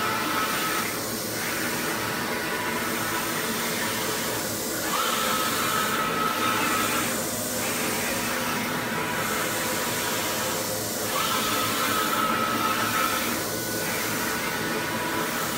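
Flatbed printer printing: a steady fan-like hiss runs under the print carriage as it sweeps back and forth. The sound changes about every three seconds as the carriage reverses, and a high steady whine comes on every other pass.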